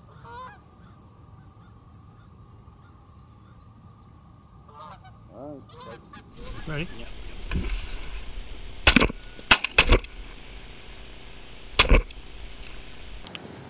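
Canada geese honking, with a short high chirp repeating about once a second. Partway through, four shotgun shots ring out: three within about a second, then one more about two seconds later.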